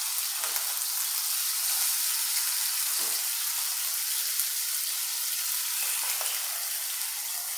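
Marinated pork leg steaks sizzling steadily in hot oil in a small frying pan, with a few soft knocks as more slices are laid in with a fork.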